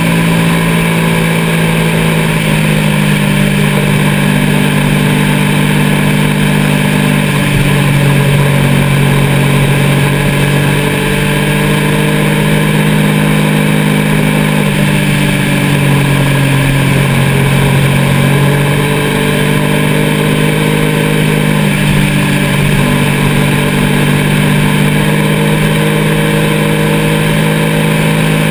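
Engine of the vehicle carrying the camera, running steadily at road speed with wind noise. Its pitch drops once and rises again a few times.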